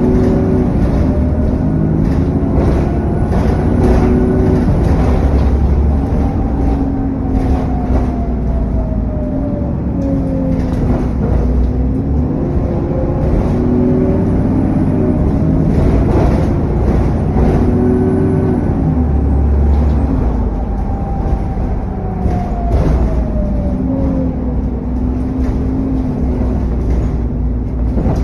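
Bus engine being driven hard, with a turbo whine that climbs and falls twice over a steady rush of engine and cooling-fan noise.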